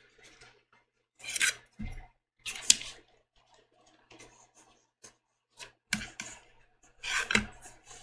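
Paper and fusible-web sheets rustling and sliding on a cutting mat as they are handled, with a few light taps and clicks scattered through.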